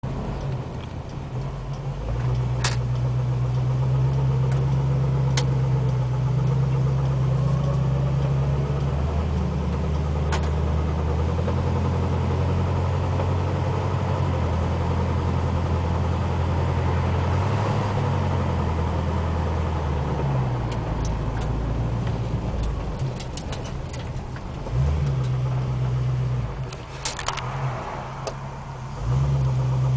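Ford 302 V8 running, a low drone that steps up and down in pitch several times, with a few sharp clicks. It carries the knock that comes only in Drive while the engine is cold and goes once it warms up; the owner cannot tell whether it comes from the engine or the transmission, and suspects something turning at camshaft speed.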